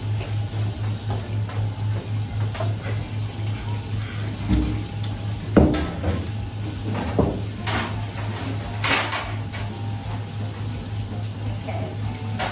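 Fish being filleted on a plastic cutting board beside a running tap: water splashing steadily, with scattered knocks and scrapes of the knife and fish on the board. The loudest knock comes about five and a half seconds in.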